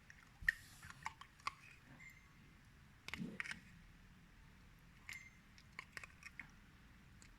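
Slime being squeezed and worked by hand, giving irregular sticky clicks and small pops in short clusters.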